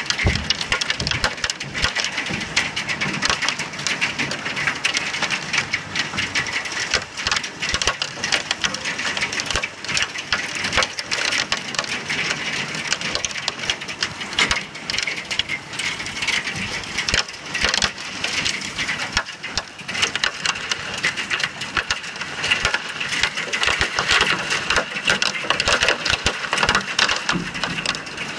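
A hailstorm with heavy rain: hailstones pelting down in a dense, steady rattle of countless small strikes over the hiss of the rain.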